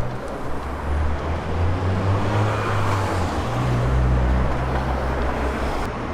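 Street traffic: a motor vehicle's engine rumble and road noise, swelling as it goes by around the middle.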